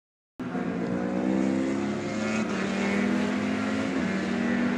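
Endurance racing superbike engines running at high revs, cutting in suddenly with a steady, high note that dips briefly and recovers about four seconds in.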